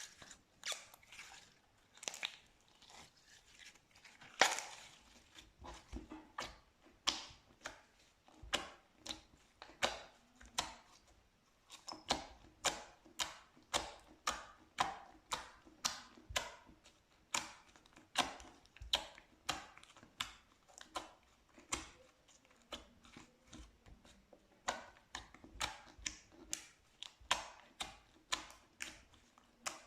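Slime being pressed and worked by hand, giving sharp crackling, popping squishes. They come irregularly at first, then settle about six seconds in into a steady rhythm of roughly one and a half a second.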